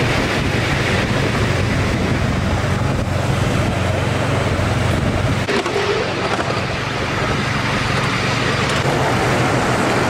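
Miniature ride-on train running along its track: a steady rumble with a low drone under it that drops away about halfway through.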